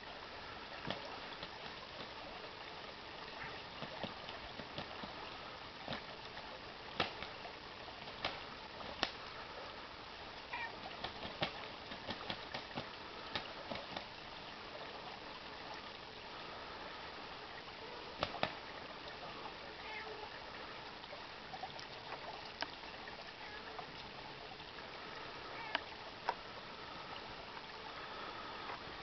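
Shallow creek water running steadily over stones. Scattered sharp clicks sound throughout, a dozen or more of them.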